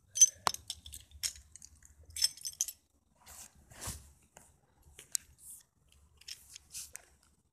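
Close handling noise: irregular clicks and crunches with a few short metallic jingles, busier in the first three seconds and sparser after.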